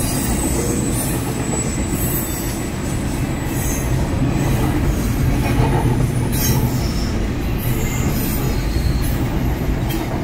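Norfolk Southern double-stack intermodal container train passing at a crossing: the wheels and well cars make a steady noise on the rails, heaviest at the low end.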